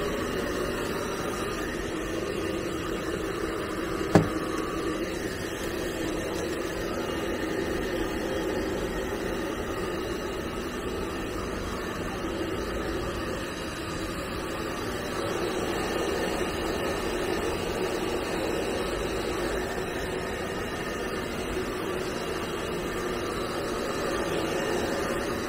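Handheld Nova hair dryer running steadily, blowing warm air over a dog's coat to dry it after a bath. A single sharp click comes about four seconds in.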